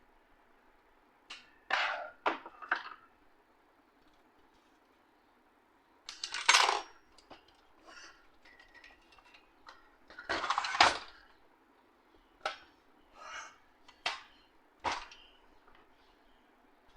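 Scattered metallic clinks and clatters of screws, a screwdriver and printer parts being handled during disassembly, in four or five separate bursts.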